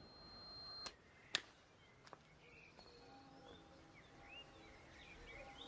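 Quiet outdoor film sound. A soft whoosh rises into a small tick, then a sharp click about a second and a half in and a fainter one after it. From about halfway, birds chirp over faint steady ambience.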